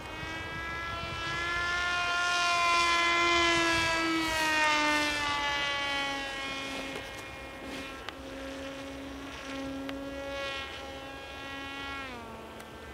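Radio-controlled model plane's motor and propeller whining as it flies overhead, loudest a few seconds in and then sliding lower in pitch as it moves away. About twelve seconds in the pitch drops sharply.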